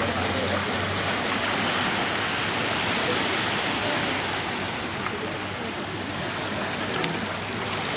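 Steady rushing outdoor noise, even and hiss-like throughout, with a single sharp click about seven seconds in.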